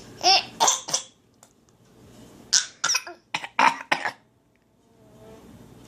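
Young child fake-coughing: three short coughs in the first second, then a quicker run of about five more coughs a couple of seconds later.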